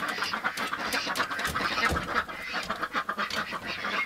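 Ducks quacking in a steady run of short, rapid calls.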